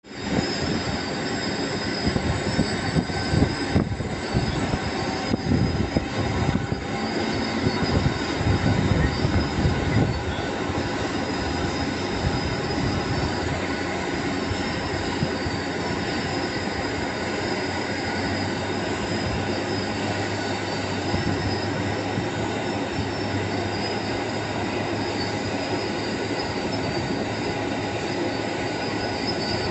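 Airbus A350 jet engines, Rolls-Royce Trent XWBs, running at taxi power: a steady high whine over a broad rush of noise, with a gusty low rumble through roughly the first ten seconds that then settles.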